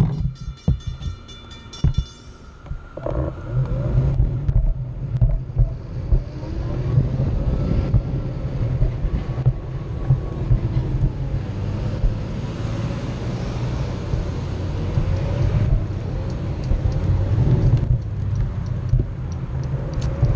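Onewheel electric skateboard riding along a concrete sidewalk: the single hub-motor wheel rumbles over the pavement, with a whine that rises and falls in pitch as speed changes. A ringing, repeating tone from the railway stops about two seconds in.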